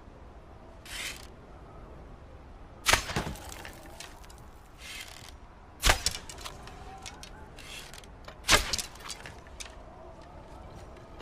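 A hunting bow being shot three times, each shot a sharp snap with a short ringing tail, about three seconds apart. Softer scraping rustles come between the shots.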